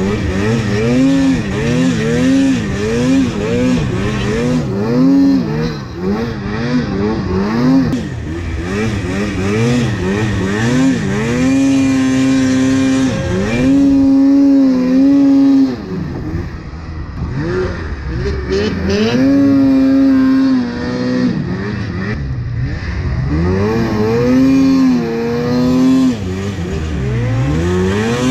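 2016 Polaris Pro RMK 800 snowmobile's two-stroke twin under constant throttle changes in deep powder, its pitch rising and falling every second or so and held high for a couple of seconds at a time in a few places.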